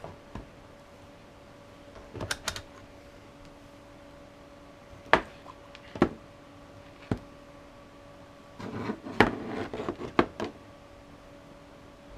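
Scattered sharp clicks and knocks of small hard objects being handled on a workbench as a multimeter is readied to test salvaged 18650 cells, with a busier run of clatter near the end. A faint steady hum runs underneath.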